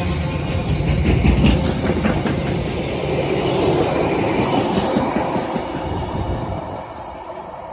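Container wagons of a freight train rolling past at speed, their wheels rumbling on the rails with a quick run of clicks over rail joints. The noise falls away about seven seconds in as the last wagon passes.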